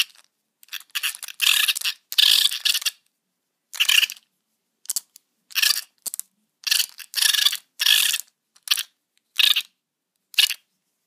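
The Small Soldiers Insaniac kids-meal figure's arm-action mechanism making its 'crazy noise': about a dozen short, harsh, unpitched bursts, each under a second, coming in a stop-start run as the arm is worked.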